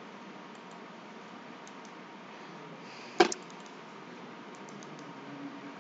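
A single sharp computer mouse click about three seconds in, over faint steady room hiss, with a few very faint ticks elsewhere.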